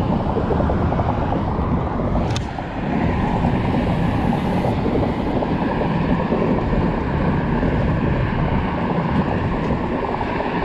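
Steady wind buffeting an open-air microphone, a dense low rumble with hiss, with one short click a little over two seconds in.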